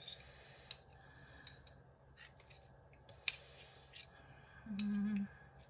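Metal spoons scraping and clicking against a glass mixing bowl as the last of a crumbly nugget mixture is scooped out, with a handful of sharp clicks spread through. Near the end, a brief hummed voice sound.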